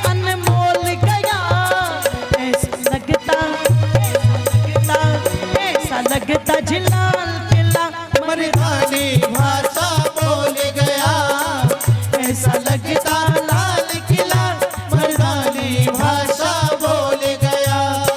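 Indian devotional song: a melody with a wavering, voice-like line over a steady drum beat.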